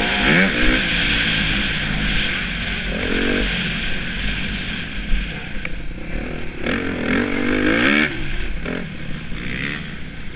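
Suzuki RM-Z250 motocross bike's four-stroke single-cylinder engine revving up and down as it is ridden, with rising pitch sweeps near the start, around three seconds in and from about seven to eight seconds in, over a steady hiss.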